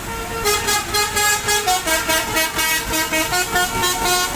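Telolet basuri multi-tone bus horn, driven by a DAV melody module, playing a fast tune of short horn notes that step up and down in pitch, starting about half a second in.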